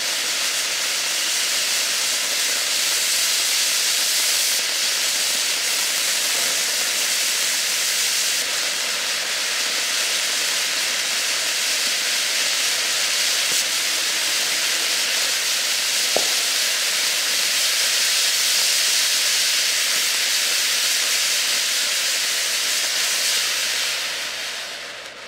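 Ground fountain firework spraying sparks with a loud, steady hiss, with one brief pop about two-thirds of the way through; the hiss dies away near the end as the fountain burns out.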